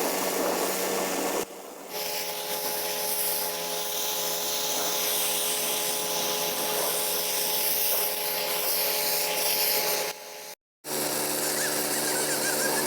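Pressure washer running steadily, its engine-driven pump droning under the hiss of high-pressure water spray. The sound breaks off briefly twice, once about one and a half seconds in and once near ten seconds in.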